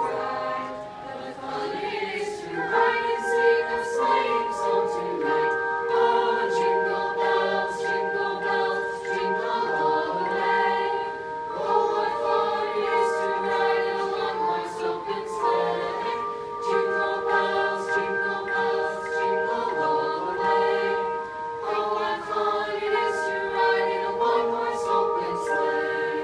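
High school choir singing a Christmas song, many voices holding long chords with short breaks between phrases.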